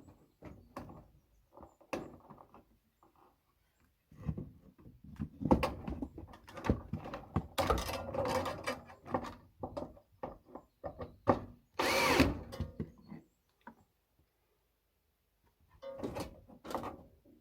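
Cordless power drill run in short bursts, likely driving screws to fix a gutter in place, among knocks and clatter from handling the gutter and fittings.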